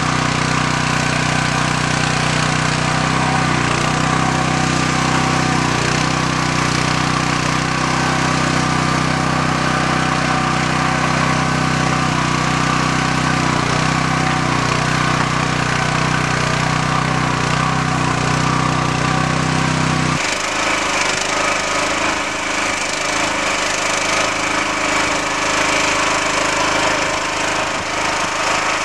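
Small engine of a Scorpion 900 compact 4x4 mini backhoe running steadily while the machine digs a trench. About 20 seconds in, the sound cuts to a harsher, noisier machine sound without the low engine hum.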